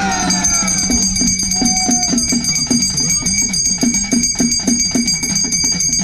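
Ceremonial drums beating a fast, even rhythm of about three to four strokes a second, with bells ringing steadily over it.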